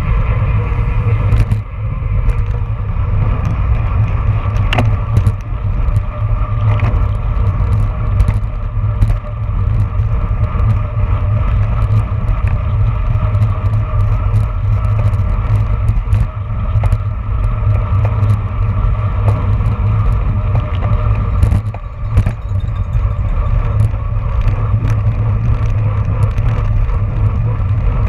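Wind rushing over the microphone of a road bike at racing speed, a heavy steady rumble, with the hum of tyres on asphalt and many scattered clicks and rattles from the bike.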